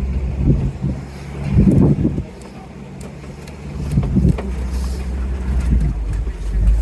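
Safari ride vehicle's engine running with a steady low rumble, dropping off about two seconds in and picking back up about four seconds in.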